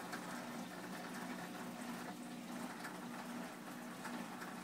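Saltwater aquarium's water circulation running: steady bubbling and splashing of moving water, with a low, even hum.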